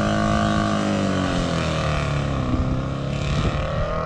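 Scott Flying Squirrel vintage motorcycles, two-stroke twins, running as they ride away from the start. The engine note drops over the first couple of seconds, then climbs again from about two and a half seconds in.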